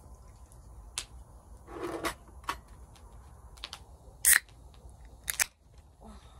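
Scattered sharp clicks and light knocks of small hard objects being handled, with a short rustle about two seconds in; the loudest click comes about four seconds in, and a close pair follows a second later.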